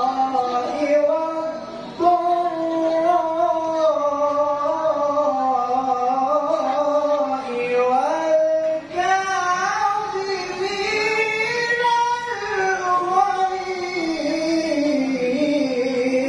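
A man's melodic Qur'an recitation (tilawah) through a microphone and loudspeakers: long held notes that glide and turn in ornamented melismas. There are short breaths about two seconds in and about nine seconds in.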